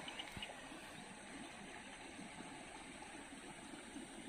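Faint, steady rush of water flowing in a small stream.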